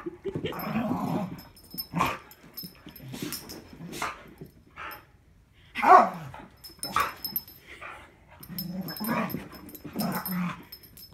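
Two dogs play-fighting, growling and barking in repeated short bursts, with the loudest bark about six seconds in.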